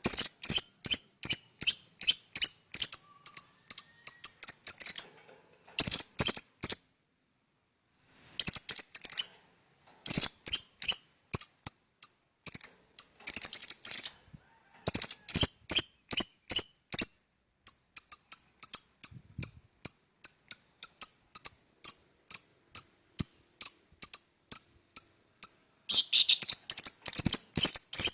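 Fischer's lovebird chirping: runs of sharp, high-pitched chirps at about three a second, broken by short pauses.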